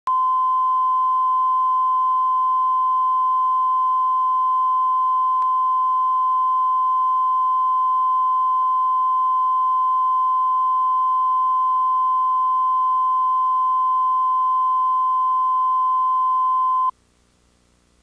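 Steady single-pitch line-up test tone at the head of a videotape, played with the colour bars. It cuts off suddenly about a second before the end.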